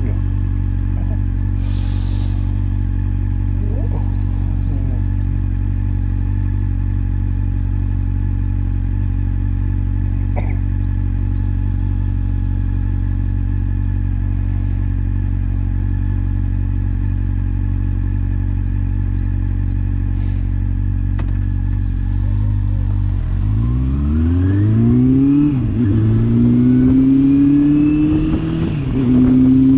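Motorcycle engine idling steadily. About 23 seconds in it pulls away, rising in pitch through the gears with two upshifts near the end.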